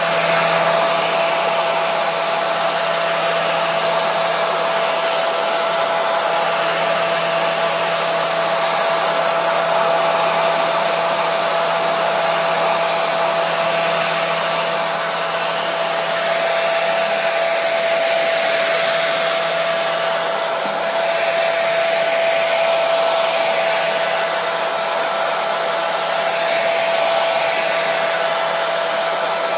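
Electric hair dryer running continuously: a steady airy rush of blown air with a constant motor whine and no change in speed.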